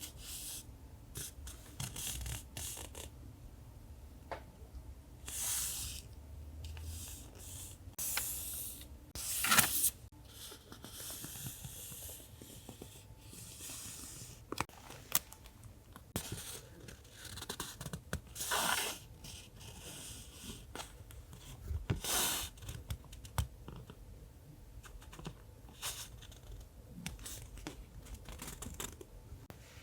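Paper journaling materials being handled: a run of short rustles, rubs and tearing or peeling sounds of paper, with scattered small taps and clicks.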